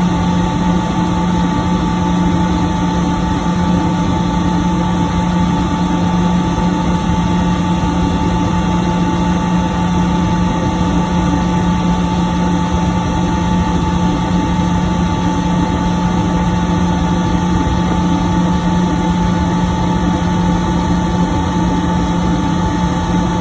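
10 HP Sullivan-Palatek rotary screw air compressor running steadily: an even mechanical drone with a low hum and a higher whine, both holding constant.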